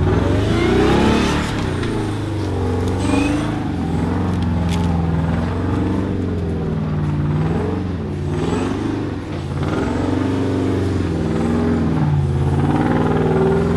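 Off-road Jeep engine revving up and down again and again under load as it works at a rough climb, the driver giving it bursts of throttle for momentum.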